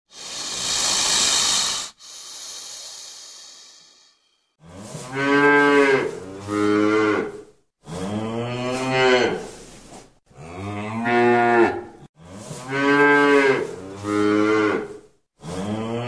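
A snake hissing, loud for about two seconds and then fainter, fading out by about four seconds in. Then cattle mooing over and over from about four and a half seconds in: long, low calls about one and a half to two seconds each, some broken in two, with short gaps between them.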